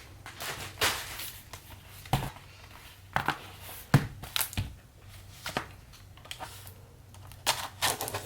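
Handling noise from unboxing a packaged vinyl record: scattered rustles, taps and clicks, with one sharp knock about four seconds in.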